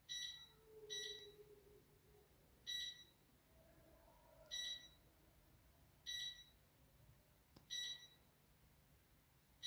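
Klarstein electric fireplace's control beeper giving six short, high electronic beeps one to two seconds apart. Each beep acknowledges a button press that steps the flame-effect light to the next colour.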